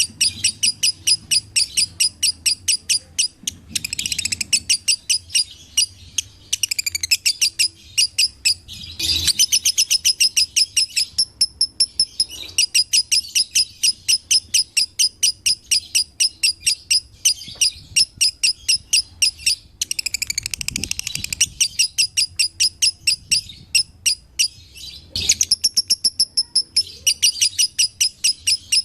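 Pet lovebird chirping in long runs of rapid, evenly spaced high chirps, several a second. There are a few brief pauses and occasional denser chattering bursts.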